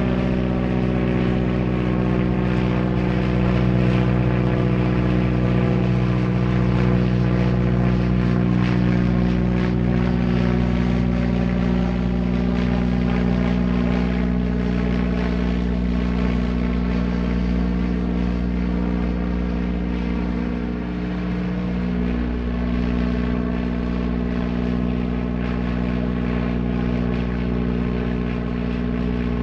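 Single-engine propeller airplane running at a steady, even drone, its note wavering slightly about two-thirds of the way through.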